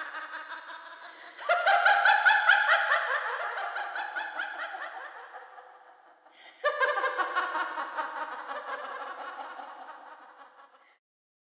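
A woman laughing hard in rapid ha-ha pulses, in two long bouts that each start loud and fade away. The laughter dies out shortly before the end.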